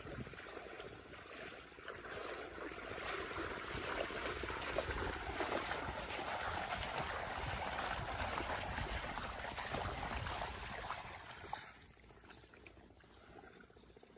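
Rushing, splashing river water as a steady noisy wash. It cuts off abruptly near the end.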